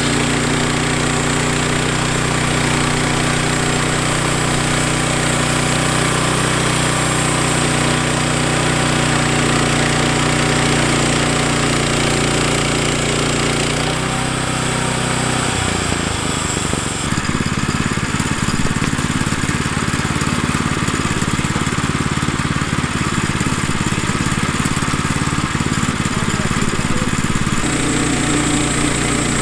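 Woodland Mills HM122 portable bandsaw mill cutting a cedar log: the gas engine runs steadily under load while the band blade saws through the wood with a steady hiss. About 15 s in the sound turns rougher and lower with less hiss, then returns to the steady cutting sound near the end.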